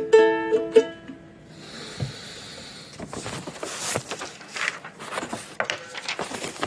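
A ukulele chord strummed twice and cut short within the first second, followed by a soft hiss and then scattered light knocks and rustling of handling.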